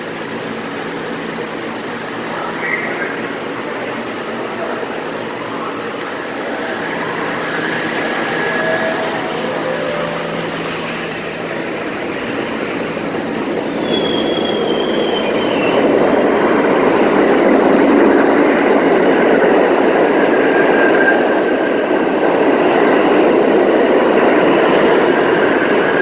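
New York City subway train of R68 cars running through the station, its rumble of wheels on rail growing from about halfway and staying loud to the end, with faint, thin wheel squeals.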